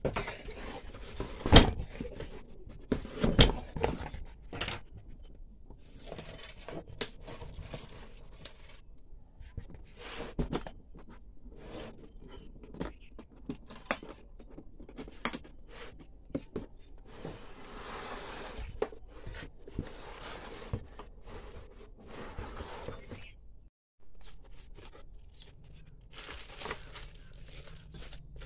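Handling noise from unpacking a hard plastic tool case: a run of knocks, clicks and scrapes, with two sharp knocks near the start the loudest. The case's metal snap latches are undone midway, and plastic wrapping crinkles and rustles near the end.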